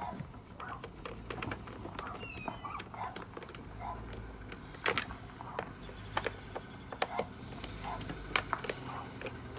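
Scattered clicks and light knocks of hand tools working on the plastic housing of a Husqvarna 455 Rancher chainsaw as it is taken apart, with a brief rapid run of ticks about six seconds in and a short high chirp about two seconds in.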